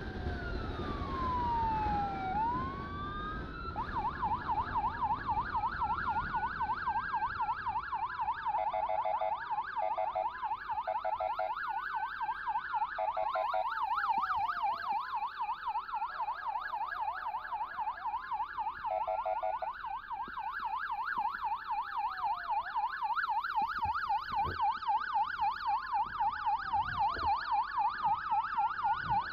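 Electronic siren sweeping slowly up and down in a wail, then from about four seconds in switching to a rapid yelp that alternates with more slow wail sweeps. A lower pulsing tone cuts in briefly several times.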